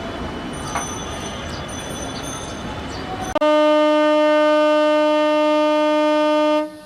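A steady rumbling noise, then, about halfway through, a long horn blast: one steady note held for about three seconds that cuts off sharply.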